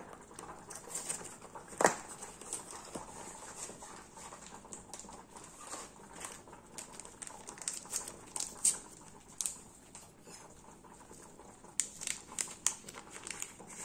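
Faint, scattered clicks and taps of light handling. Near the end comes a short cluster of them as a small packet of baking powder is opened by hand.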